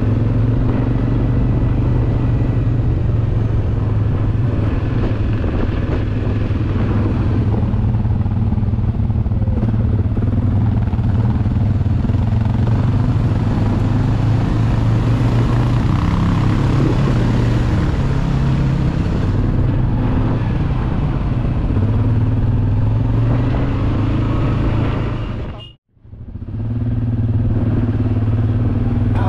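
Motor vehicle engine running steadily under way. The sound cuts out completely for a moment about 26 seconds in, then resumes.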